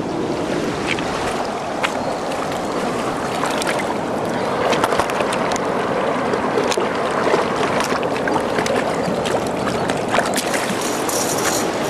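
Rushing river water below a dam, a steady wash of noise, with a few small splashes and knocks close by.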